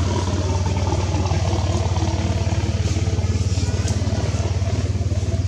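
A small engine idling steadily: a low drone with a fast, even throb.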